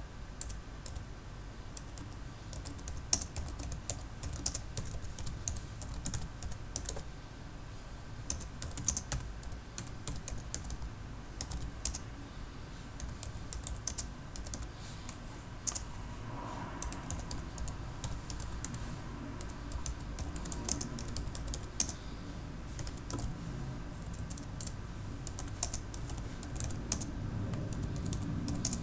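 Typing on a computer keyboard: irregular runs of keystrokes with short pauses, over a low steady hum.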